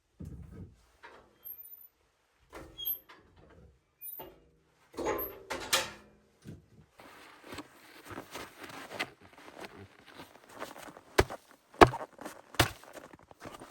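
Irregular knocks, clicks and rustling of things being handled, with a few sharp knocks near the end.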